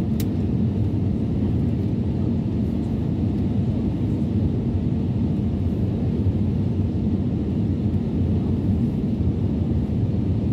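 Steady low rumble of jet engines and rushing airflow heard inside an airliner's passenger cabin in flight. A brief click sounds right at the start.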